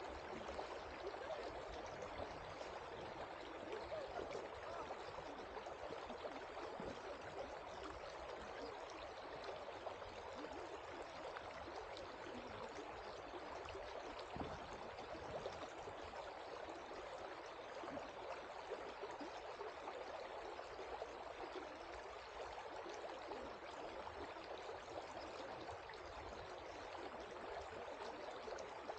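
Shallow river water flowing steadily over rocks and gravel.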